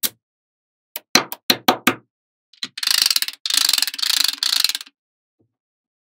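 Small magnetic balls clicking together as wall panels built from them are snapped into place: one click, then a quick run of about six sharp clicks about a second in, then a dense clattering rattle lasting about two seconds.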